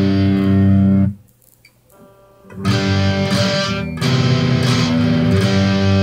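Homemade electric baritone guitar, capoed up the neck, strummed through an amplifier: a ringing chord is cut off about a second in, a pause of about a second and a half follows, then strummed chords start again and carry on.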